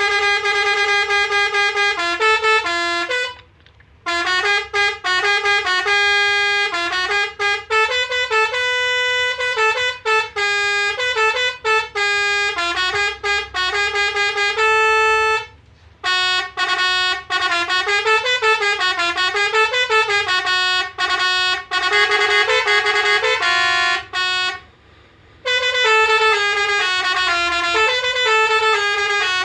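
MSK Road Master RM-615 24-volt musical air horn playing melodies, a quick run of stepping horn notes with some sliding up and down. It breaks off briefly three times.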